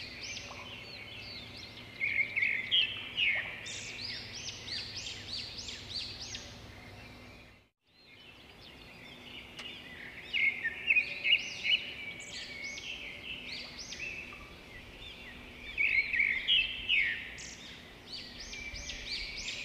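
Many small birds chirping together in a dense chorus of quick, high calls, cut off briefly about eight seconds in before starting again.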